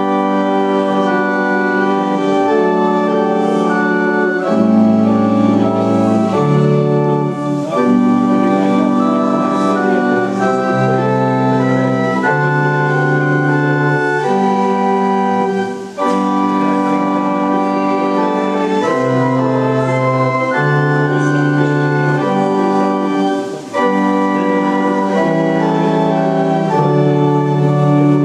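Organ music: sustained chords held and changing every second or two, with two brief breaks between phrases.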